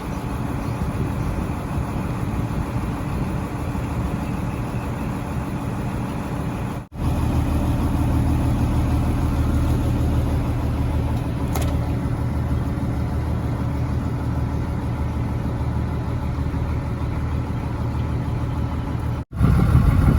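A fishing boat's engine running with a steady low drone, cutting out very briefly twice. Near the middle comes a short whistle that falls quickly in pitch.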